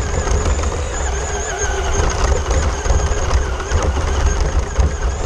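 Traxxas RC car driving over a lawn. Its motor and gears whine, wavering in pitch with speed, over a heavy uneven rumble from the camera mounted on the car jolting over the grass.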